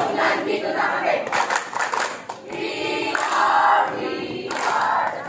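A group of young scouts singing and chanting together in unison, a patrol yell or cheer.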